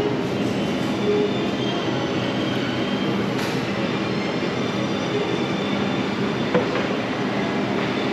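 Steady mechanical hum and rush from the fans and compressors of glass-door refrigerated display cabinets, with a few low humming tones held throughout.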